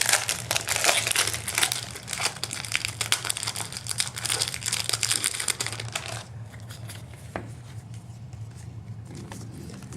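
Foil booster-pack wrappers crinkling and tearing as trading-card packs are ripped open and handled. The crinkling is busy for about six seconds, then dies down to faint rustling with a single click.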